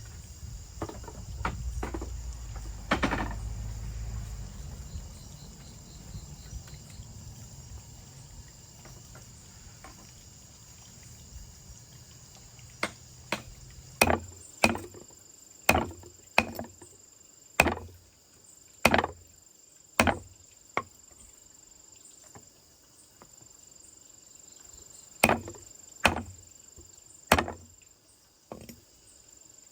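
Chopping: sharp strikes of a blade on wood, about one a second through the second half with a pause of a few seconds, over a steady high hum of insects. A low rumble and a single heavier thump in the first few seconds.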